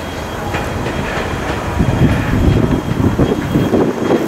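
Steam locomotive running past, its exhaust and running gear growing louder about two seconds in.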